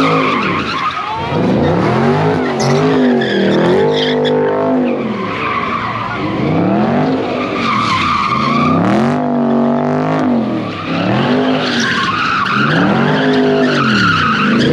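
Car engines revving up and falling back over and over, about every second and a half to two seconds, with tires screeching as the cars drift together in tandem.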